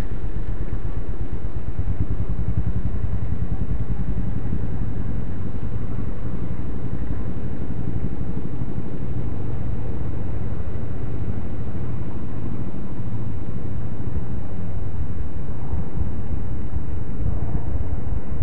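Steady low rumbling noise, heaviest in the bass, with no distinct events.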